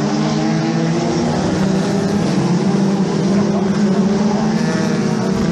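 Several Formula 2 stock car engines running together, holding a steady, even note without revving up or down.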